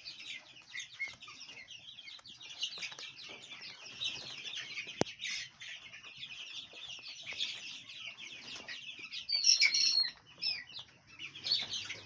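A crowded flock of three-week-old Sasso and baladi chicks cheeping continuously, a dense mass of high peeps, with a few louder calls standing out near the end. A single sharp click about five seconds in.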